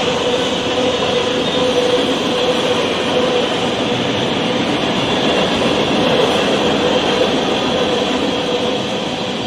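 Freight train cars rolling past at speed: a steady roar of steel wheels on rail, with a faint steady whine running through it.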